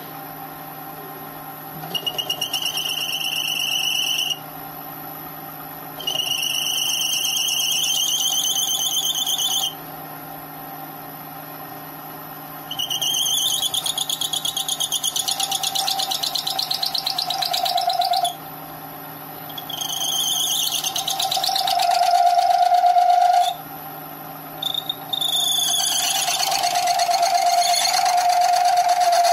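A carbide insert on a mini lathe squeals as it cuts hardened tool steel, over the steady hum of the lathe. It comes in five high, chattering bursts a few seconds long, with short gaps of hum between them. The cut sounds terrible and the tool is pulled into the work, a sign that the mini lathe may not be rigid enough to turn hardened steel.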